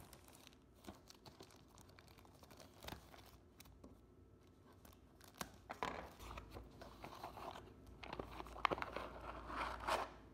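Plastic mailer packaging being torn open and crinkled by hand. Scattered small rustles at first, then denser and louder crinkling through the second half.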